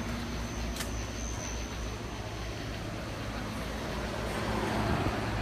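Steady low rumble and hiss of outdoor background noise, with a faint click a little under a second in.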